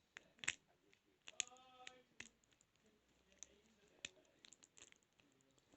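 Faint, irregular light metal clicks of a rake pick working the pins inside a 32mm padlock, with a tension wrench in the keyway.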